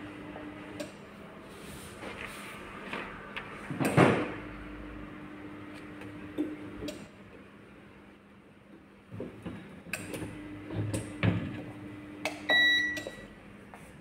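Clamshell heat press being worked: knocks of the handle and platen, the loudest about four seconds in, with a steady low hum that comes and goes. A short electronic beep from its control panel sounds near the end.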